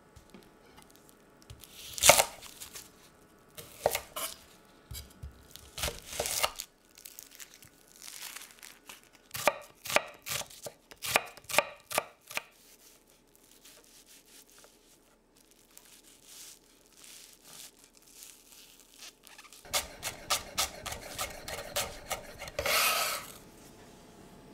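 Chef's knife cutting a shallot on a bamboo cutting board: spaced groups of knife strokes on the wood, then a fast run of mincing chops near the end, finished by a short scrape of the blade gathering up the minced shallot.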